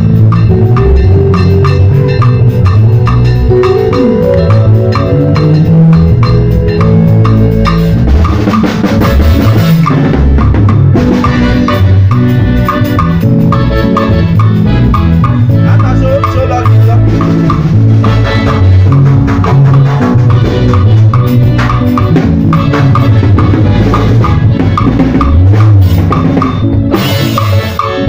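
Drum kit playing a steady beat with kick, snare and cymbals, over music with a moving bass line.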